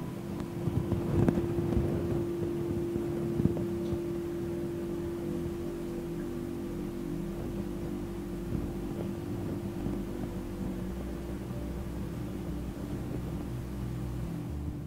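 Quartz crystal singing bowl (a heart chakra bowl) struck twice in the first few seconds, its single pure tone ringing on steadily.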